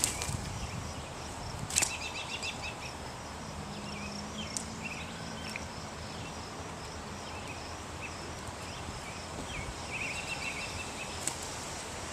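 Outdoor ambience: small birds chirping over a steady background rush, with a sharp click at the start and another about two seconds in.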